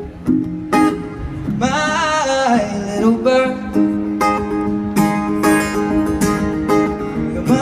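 Live acoustic guitar being strummed, with a man singing over it, in the closing bars of a song.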